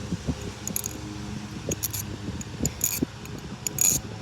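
Butterfly knife (balisong) being handled: a scattering of sharp metallic clicks and small rattles as the blade and two handles swing and knock on their pivots, the loudest near the end.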